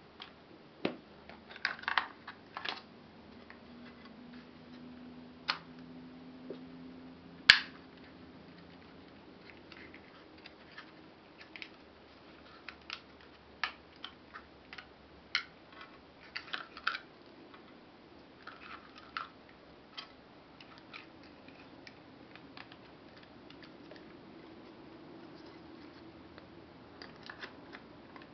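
Irregular clicks, taps and light handling noises as a Lomography Sprocket Rocket camera and its box are handled and unpacked. The loudest is a single sharp click about seven and a half seconds in.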